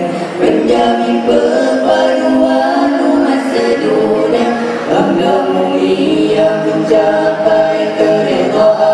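Male nasyid vocal group singing in harmony, several voices holding sustained notes together.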